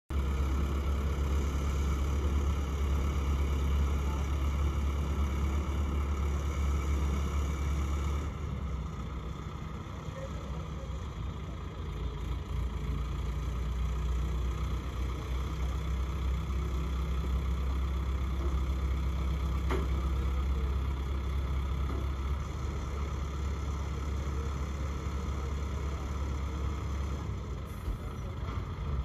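Heavy truck engine running steadily with a low hum, which eases slightly about eight seconds in.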